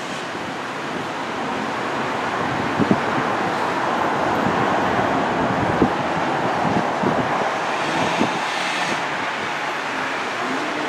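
Steady rumble of a train running on its rails, with scattered clicks and knocks, growing slightly louder.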